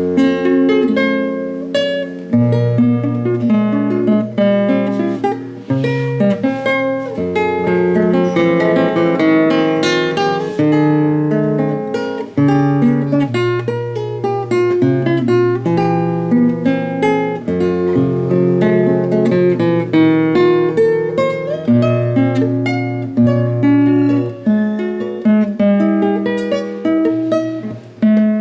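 1988 Ramírez 1A nylon-string classical guitar played fingerstyle: plucked melody and chords over held bass notes that change every few seconds.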